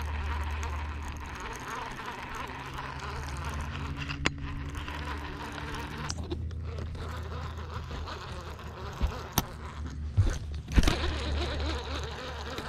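Boat motor running steadily while the boat trolls, under a haze of water and wind noise. A few sharp knocks come near the end.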